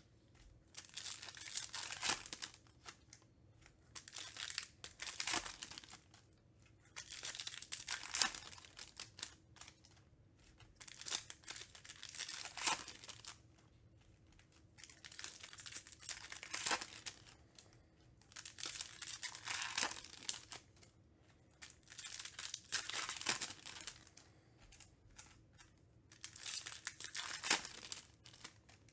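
Foil wrappers of 2021 Topps Stadium Club Chrome card packs being torn open and crinkled, in repeated bursts every few seconds with short quieter gaps between.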